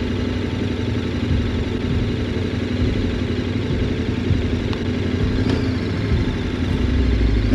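KTM 1190 Adventure's V-twin engine running steadily as the motorcycle rolls slowly along a dirt trail, growing a little louder near the end.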